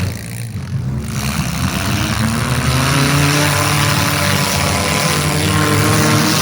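Demolition derby cars' engines running hard, several at once. The revs drop off right at the start, then climb back up and hold loud.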